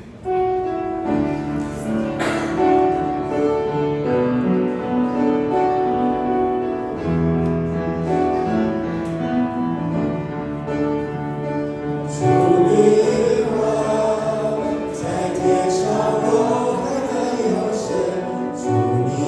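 Hymn accompaniment with held keyboard or piano notes, joined by voices singing, louder from about twelve seconds in.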